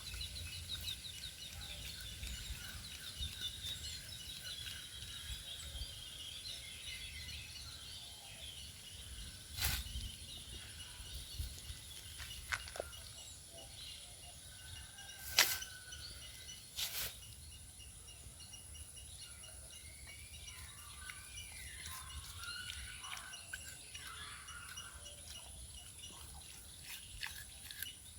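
Outdoor rural ambience: birds chirping and calling, with fast trills in the first few seconds and more gliding calls later, over a steady high-pitched whine and a low rumble. Three sharp clicks stand out around the middle.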